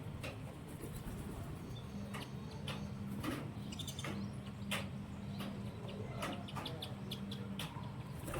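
Birds chirping briefly amid scattered sharp clicks, over a steady low hum.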